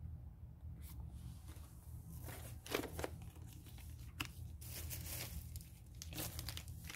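Faint, intermittent crinkling and rustling of plastic and paper toy packaging being handled, in a few short crackles.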